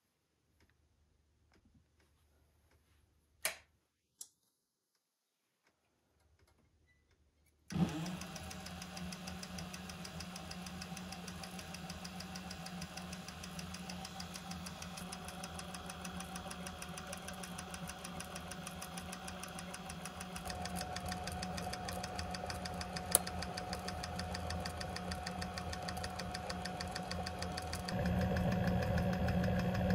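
An industrial cylinder-arm leather sewing machine. Two short clicks come first, then about a quarter of the way in the motor starts the machine, and it runs steadily with a fast, even mechanical chatter, getting louder toward the end.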